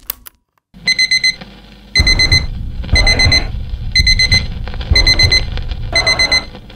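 Digital alarm clock beeping in quick groups of rapid beeps, one group about every second, with a deep drum beat joining about two seconds in.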